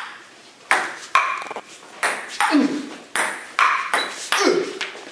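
Table tennis ball being hit back and forth in a rally: a string of sharp ball clicks from paddle strikes and table bounces, about one every half second, each with a short ring.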